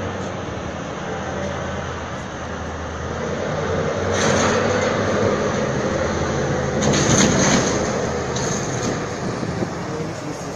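BelAZ 75710 450-tonne mining dump truck's diesel engines running steadily as it drives over a car. There are two louder stretches of crunching and cracking as the car is crushed under its wheels, about four seconds in and again, loudest, about seven seconds in.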